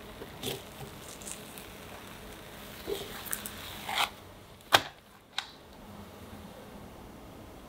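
Light scrapes and clicks of a spatula on a ceramic non-stick frying pan as a thin crepe is loosened and lifted out, with soft rustles of the crepe. A sharper tap comes just before the five-second mark.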